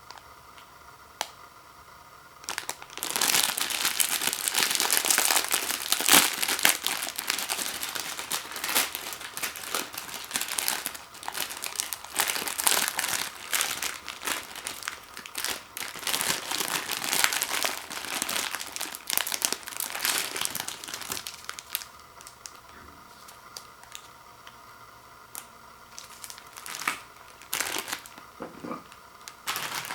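Plastic ramen-packet packaging crinkling as it is handled. It starts a few seconds in and stops about two-thirds of the way through, with a few short crinkles near the end.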